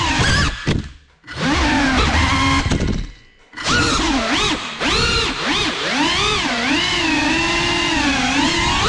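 FPV racing quadcopter's brushless motors and propellers whining. The pitch swoops up and down constantly with the throttle. The sound falls almost silent twice, about a second in and again around three seconds in, as the throttle is chopped.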